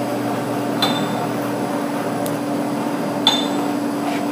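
Steady machine hum from the improvised rig turning a concrete pipe for polyurethane casting, with a sharp, briefly ringing metallic clink twice: a little under a second in and again just past three seconds in, a regular knock that comes around with the turning.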